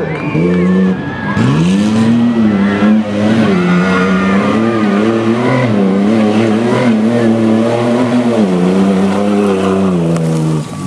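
Off-road competition truck's engine running hard under load. Its pitch dips about a second in, climbs back and holds high with small rises and falls, then dips briefly near the end.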